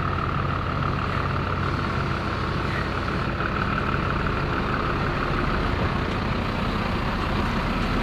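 Scania semi-truck's diesel engine running steadily as the tractor unit pulls its trailer slowly past.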